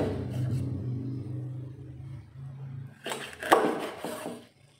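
A knife chopping through a milkfish on a cutting board: about three sharp knocks in the second half, the middle one loudest. Before them a steady low hum fades out.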